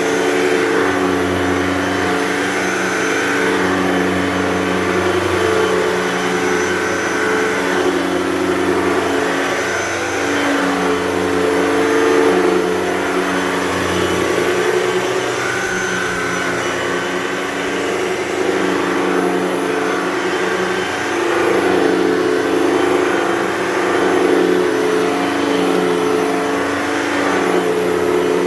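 Hoover Total Home Pet upright vacuum cleaner running on carpet: a loud, steady motor whine whose pitch wavers slightly now and then as it is pushed back and forth.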